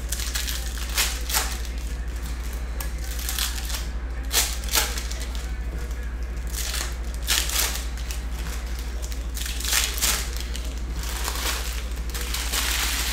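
Foil trading-card packs (2021-22 Panini Donruss Optic basketball) being torn open and their wrappers crinkled and handled, in a run of short, uneven crackling rustles. A steady low hum runs beneath.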